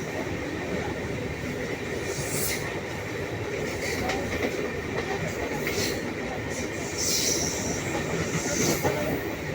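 Train running along the track: a steady rumble and rush of noise, with several brief high-pitched bursts from the wheels on the rails.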